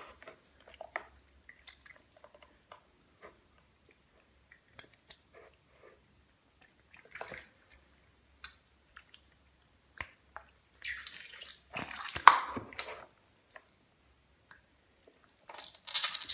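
Sock-covered feet and hands working in a bucket of thin green slime: wet squelching and sloshing with scattered drips. A louder stretch of splashing about eleven to thirteen seconds in, and a short burst near the end.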